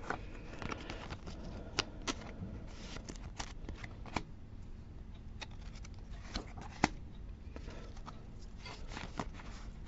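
Hands handling Pokémon trading cards and a foil booster pack: soft rustling and sliding of cards with scattered sharp clicks and snaps, the loudest about two seconds in and again about seven seconds in.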